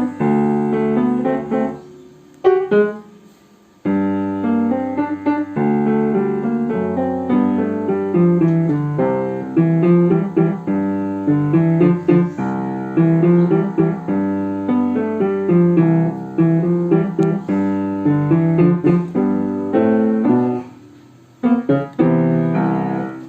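Piano playing the lower secondo part of a waltz duet, with bass notes under repeated chords. It breaks off briefly about two seconds in and starts again, plays steadily, pauses briefly near the end and closes on final chords.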